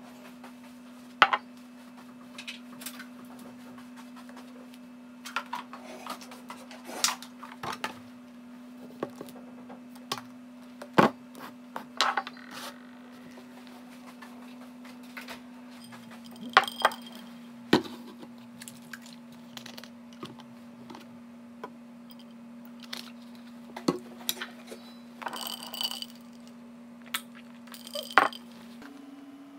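Breakfast tableware handled on a wooden table: a glass bowl, a metal spoon and glass containers set down and moved, giving scattered knocks and clinks, a few of them ringing like glass. A low steady hum runs underneath.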